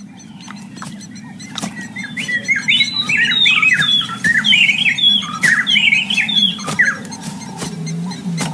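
Small birds chirping in quick, sliding notes for about five seconds, over a low steady hum.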